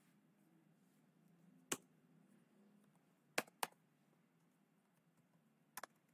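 A few isolated computer keyboard keystrokes over near silence: about four sharp key clicks spread out, two of them close together about halfway through.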